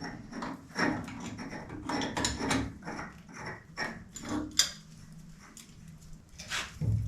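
Irregular knocks, clicks and clinks of hand work on metal boiler piping and fittings, about a dozen sharp strokes spread unevenly over several seconds.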